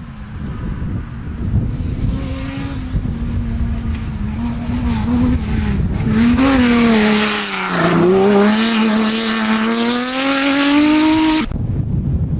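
Rally car engine drawing near and getting louder, its pitch dipping sharply about eight seconds in as the car passes close, then climbing steadily as it accelerates away. The sound cuts off suddenly near the end, leaving a rushing noise.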